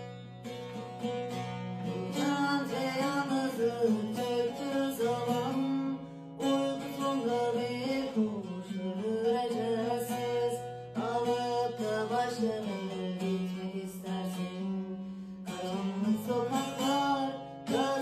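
Bağlama, the Turkish long-necked lute, being plucked, with a voice singing a wavering melody over it.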